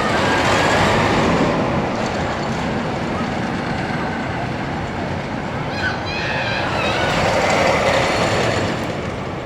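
Roller coaster train running along its track, a loud rushing rumble that swells near the start and again about seven seconds in, with brief riders' voices about six seconds in.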